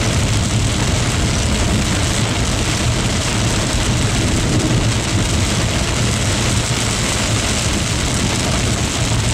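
Steady engine and road rumble inside a moving car, with a hiss of rain and wind on the vehicle.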